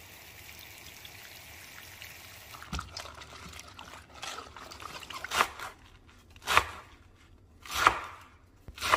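Tap water running and trickling over romaine hearts in a stainless steel bowl, then a few knocks as the leaves are handled. In the second half, a knife chopping romaine lettuce on a bamboo cutting board, sharp strokes about a second apart.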